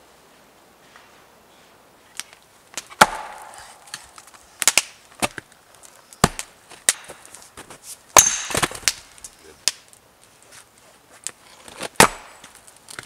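An axe splitting firewood on a chopping block: a string of sharp, loud wooden chops at irregular intervals, beginning about two seconds in after a quiet start.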